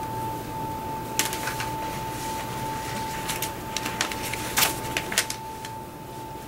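Sheets of paper being handled and shuffled on a table: several short rustles and taps, the loudest a little past halfway. A steady thin tone hums underneath.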